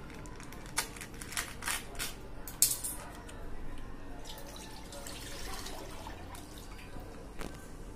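Crinkling and clicking of a plastic milk pouch being handled, then full-fat milk pouring from the pouch into a steel pan, a steady splashing pour about four seconds in.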